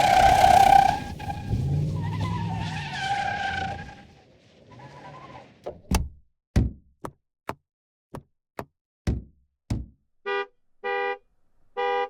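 Chevy Silverado pickup truck sounds in sequence. First comes a loud tire squeal over the engine, fading out about four seconds in. Then come about nine sharp clicks and knocks, and near the end three short honks of the truck's horn.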